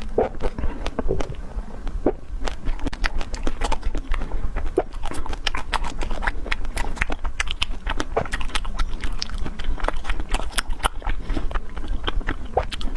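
Close-miked biting and chewing of a Magnum chocolate-coated ice cream bar, with many quick, sharp crunches and crackles.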